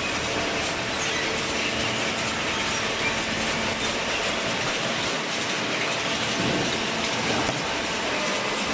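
Steady noise of running machinery with a faint hum under it, even throughout.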